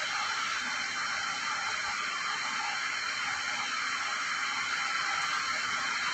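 Steady hiss-like background noise with a few faint steady tones in it, at an even level throughout.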